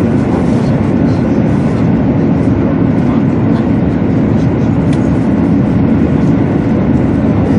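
Steady running noise of a 200 series Shinkansen at high speed, heard from inside the passenger cabin: an even, low rumble that doesn't change.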